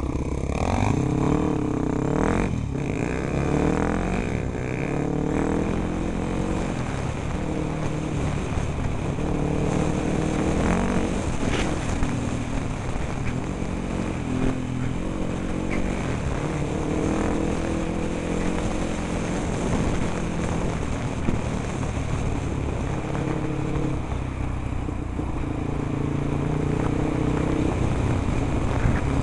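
Off-road vehicle engine heard from an onboard camera, its pitch climbing and dropping over and over as it is ridden hard through the gears on a rough dirt track. Wind rush and rattling run throughout.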